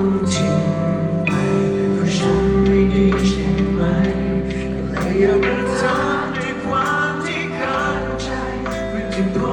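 Music with singing voices: held notes over a bass line that changes every couple of seconds.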